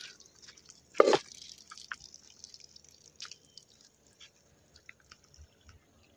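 Water dripping and splashing as mustard greens are washed by hand, with one louder sudden noise about a second in, then scattered faint drips and small clicks.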